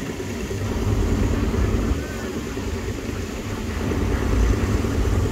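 Steady low rumble of heavy machinery. It swells louder about a second in and again near the end.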